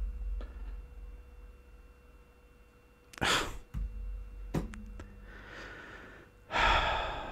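A man sighing twice, a short sigh about three seconds in and a longer one near the end, in disappointment at a missed dice roll. A single click comes between the sighs.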